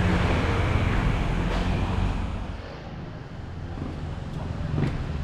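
A motor vehicle's engine running as a steady low drone, which fades about halfway through and builds again.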